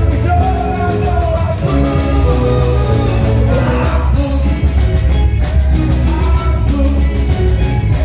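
A live band plays a boi-bumbá toada: loud drums and bass keep a steady beat under a sung melody, with a long held note in the first second or so.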